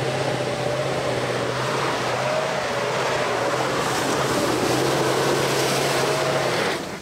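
Off-road 4x4's engine running loud and steady on a hill climb. The sound cuts off abruptly near the end.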